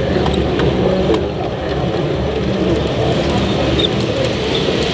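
Background hubbub of a busy exhibition hall: many indistinct voices murmuring over a steady low rumble.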